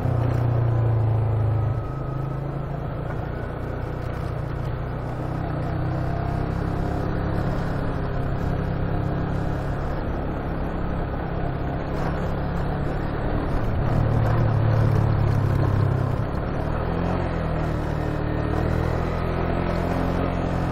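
Motorcycle engine running under way at low speed, a steady low rumble. It grows louder briefly in the first two seconds and again about two-thirds of the way through.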